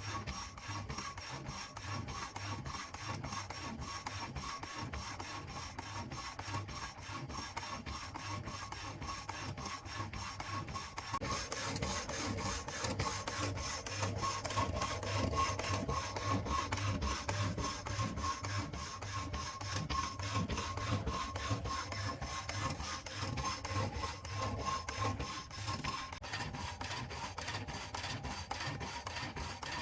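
Homemade power hacksaw, driven by a washing-machine motor, running with its blade rasping back and forth in rapid, even strokes, over a faint steady motor whine. The cutting grows louder and harsher about eleven seconds in.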